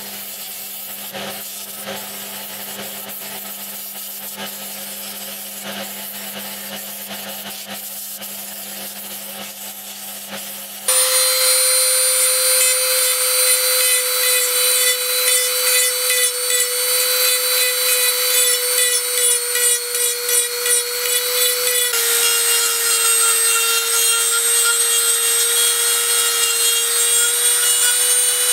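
An electric disc sander runs steadily for the first ten seconds or so. Then a high-speed rotary tool with a tapered sanding drum takes over, louder, with a steady high whine as it sands the inside of a wooden spoon bowl. Its pitch dips slightly for a few seconds near the end.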